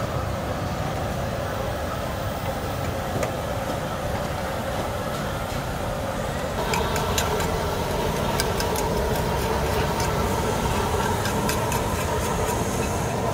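Market bustle of voices over a steady low rumble. About halfway through, hot oil in a large wok comes up loud, bubbling and crackling with many sharp pops as food deep-fries.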